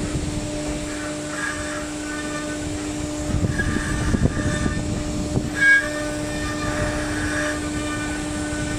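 CNC router spindle running with a steady hum as the bit carves a decorative border pattern into an MDF board, with a rough cutting rumble and recurring higher scraping as the cutter moves along the pattern. There is one short, louder sound near six seconds in.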